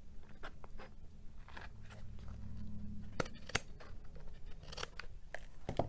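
Scissors snipping through folded cardstock: a series of short, crisp cuts, the two sharpest a little past halfway.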